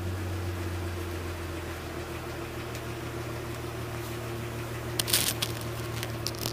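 Holden Commodore VT exhaust at idle, a low, even note from the tailpipe; the rear muffler has been cut out and replaced with a straight pipe. About five seconds in and again near the end, a few clicks and rustles as a microphone cable is handled on the concrete.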